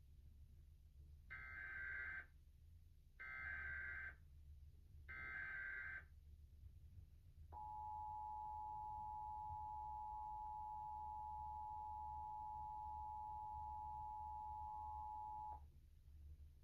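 Emergency Alert System broadcast signals: the SAME data header sent as three short bursts of digital tones about a second each, then the EAS two-tone attention signal, a steady dual-tone beep held for about eight seconds that cuts off sharply. Together they announce a required monthly test of the alert system.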